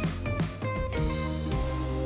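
Music: a run of quick plucked notes, then a held chord from about one and a half seconds in.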